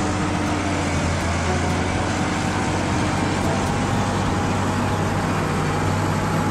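Diesel engine of a crawler bulldozer running steadily under load as its blade pushes soil, a constant low drone.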